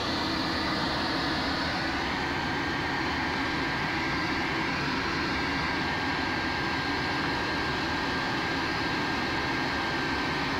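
Steady rush of air around a glider's cockpit canopy in flight, with a faint steady tone that comes in about two seconds in.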